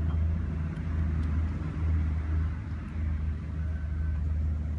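Steady low hum of a running motor, with a few faint high ticks.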